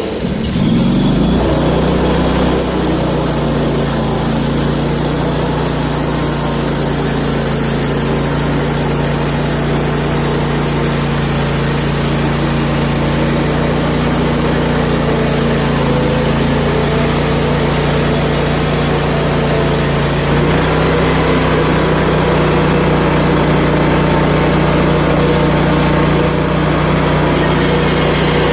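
Gas engine of a Hud-son portable bandsaw sawmill revving up about a second in, then running steadily under load as the mill saws a siding board. The engine note shifts slightly about twenty seconds in.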